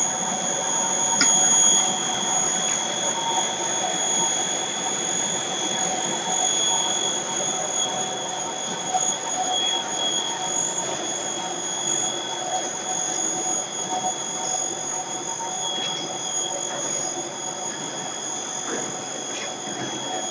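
Pasta extrusion machine running: a steady mechanical drone with a high, steady whine over it.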